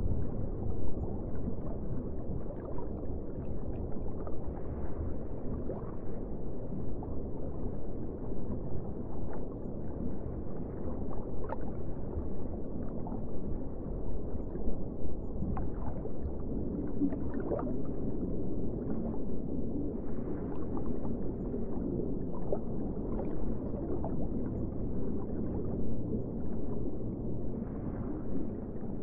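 Underwater ambience: a steady, muffled low rumble of water, with small bubbling gurgles scattered through it.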